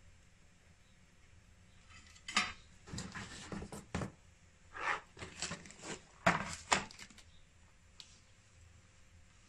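Hands handling the opened inverter's metal chassis, wiring and small parts: a run of clatters, clicks and scrapes starting about two seconds in and stopping about seven seconds in.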